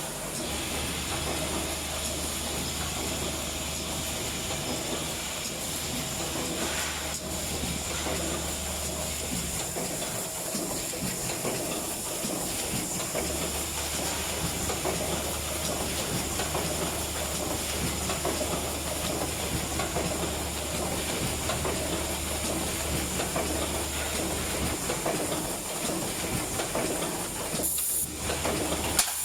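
Automatic spout pouch sealing machine running: a steady mechanical hiss with faint clicking. A low hum drops out about a third of the way in and comes back a few seconds later.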